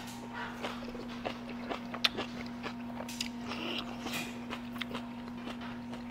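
A person chewing crunchy, not fully fermented kimchi close to the microphone: irregular crisp crunches and small mouth clicks over a steady low hum.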